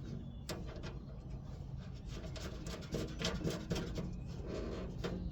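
Faint scattered clicks and light rubbing of hands handling bolts and metal parts, over a low steady hum.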